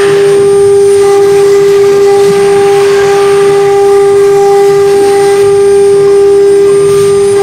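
Spindle motor of a three-spindle CNC wood router running with a steady high-pitched whine as its bit carves letters into a wood board, with a hiss under the whine.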